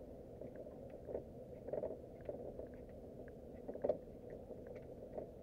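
A small boat drifting: scattered faint ticks and clicks with a few soft knocks about one, two and four seconds in, over a steady low hum.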